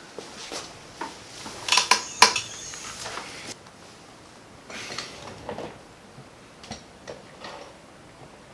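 A quick cluster of sharp joint cracks from a chiropractic adjustment about two seconds in, followed by a few fainter single pops later.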